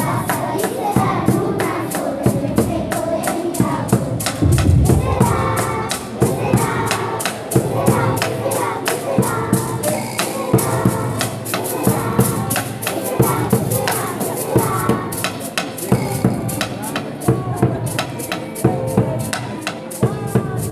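Children's group singing a song together over a steady percussive beat of about four strokes a second.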